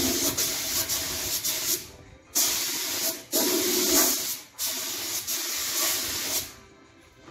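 Compressed-air gravity-feed spray gun hissing in four bursts as the trigger is pulled and let go, spraying a clear gloss lacquer finish coat. The hiss stops shortly before the end.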